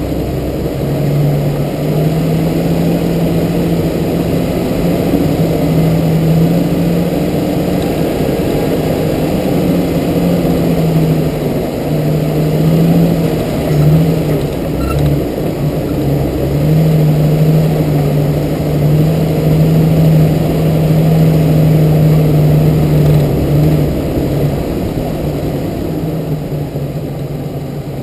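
Jeep TJ engine running steadily as the Jeep drives along a dirt trail, its pitch wavering a little as the throttle changes, over a steady rush of road noise. It eases off slightly near the end.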